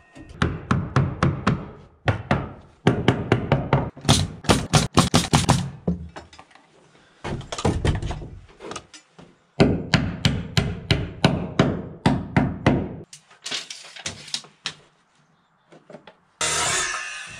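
Hammer driving nails into wooden blocking, in several quick runs of blows about five a second with short pauses between.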